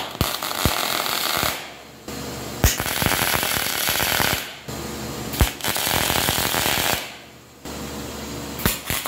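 Electric arc welding on 316 stainless steel: a steady crackling sizzle in four runs of a second or two, with short breaks between them and a sharp pop as several of the runs begin.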